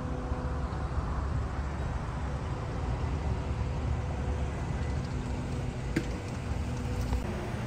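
Open-air ambience of a busy fuel station: a steady low rumble of idling and slowly moving cars and trucks, with a faint hum and a single sharp click about six seconds in.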